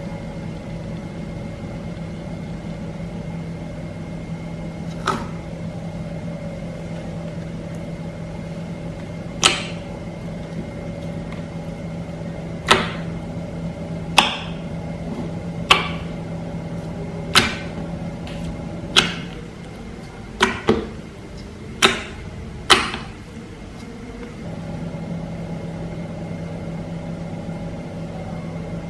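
Glossy slime being pressed and poked, giving about a dozen sharp pops, some in quick pairs, over a steady electrical hum. The hum drops out for a few seconds near the end, then returns.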